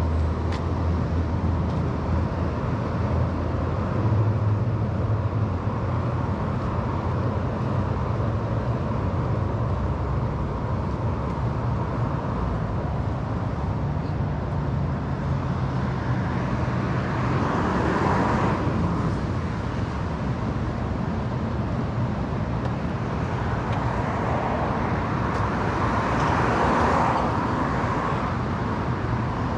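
Steady city road traffic: car engines and tyre noise, with a low engine hum through the first half and two louder swells as vehicles pass, a little past the middle and again near the end.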